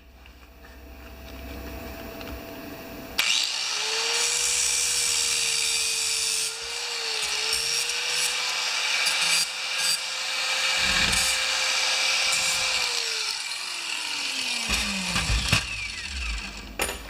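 Electric cut-off tool spinning up about three seconds in and cutting off a piece with a steady hiss. Its pitch dips briefly as it bites into the work, then it is switched off and winds down with a falling whine.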